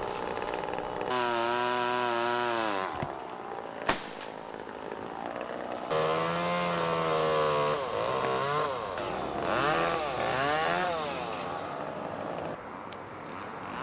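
Two-stroke chainsaw running in bursts as it cuts, its pitch rising and falling with the throttle. There is a sharp knock about four seconds in.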